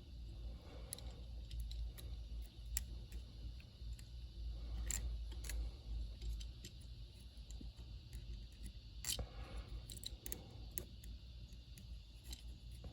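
Commodore SX-64 keys pressed one at a time, giving scattered irregular clicks and light clatter, without the scratch of the key posts rubbing on the membrane now that its edge has been trimmed. A steady low hum runs underneath.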